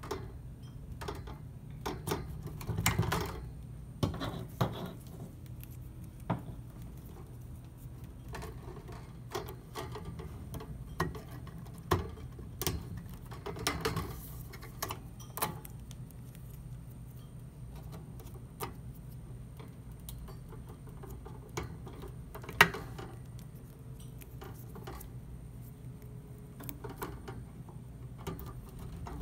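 Plastic 6-pin power connectors on a power supply's cables being pushed into the sockets of an Antminer A3 crypto miner's hashboards: scattered small clicks as they latch, with the rustle and knock of the bundled cables being handled. The sharpest click comes about two-thirds of the way through, over a steady low hum.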